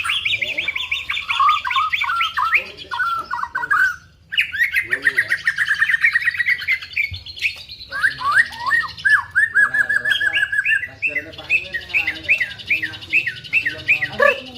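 White-rumped shama singing in long runs of quick repeated chirps, mimicking the call of a female prinia. The runs break off briefly about four seconds in and again about halfway through.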